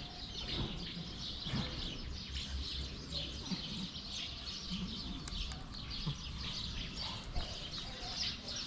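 A chorus of many small birds chirping and twittering without a break, over a low steady background rumble.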